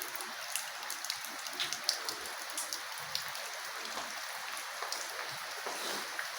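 Steady hiss with many scattered small ticks, the kind of sound light rain or dripping water makes on surfaces.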